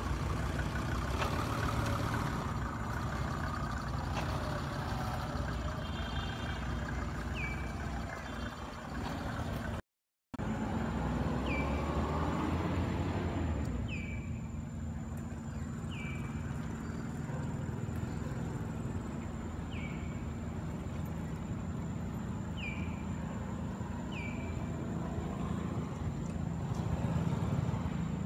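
Steady low outdoor rumble like distant traffic, with a short high falling chirp repeating every two seconds or so. The sound drops out for half a second about ten seconds in.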